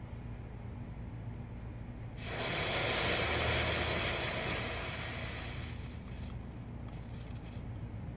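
Potassium chlorate and sugar mixture igniting about two seconds in and burning with a loud, even hiss, which fades away after about four seconds, leaving a few faint ticks.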